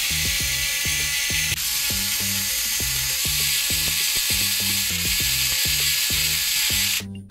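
Powbuzz cordless electric precision screwdriver running with a T9 bit, backing out laptop hinge screws; its sound grows brighter about a second and a half in and stops abruptly near the end. Background music with a steady beat plays underneath.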